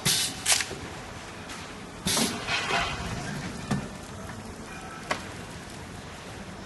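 Cup sealing machine being worked by hand: its metal tray drawer sliding out with short noisy rushes, then clacks and knocks as sealed plastic cups are lifted from the tray, over a steady machine hum.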